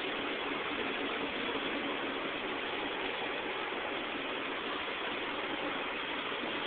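Steady street traffic noise, an even hiss-like wash with no distinct passing vehicle or other event.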